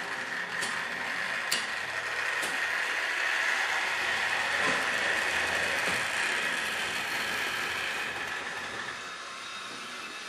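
Trix Express H0 model train running along the track: a steady mechanical whir and rattle of its motor and wheels that grows louder in the middle and eases off near the end. A few sharp clicks come in the first couple of seconds.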